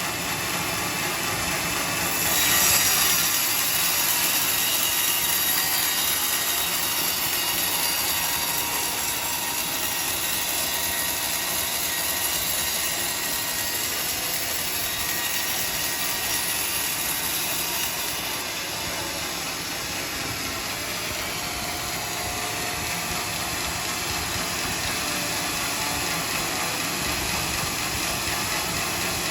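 Band sawmill running, its blade sawing through a log with a steady mechanical noise; the sound gets louder about two seconds in and eases off somewhat after about eighteen seconds while the machine keeps running.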